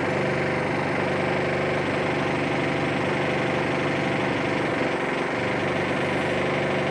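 Power drill running loudly and steadily at a constant pitch, cutting in suddenly.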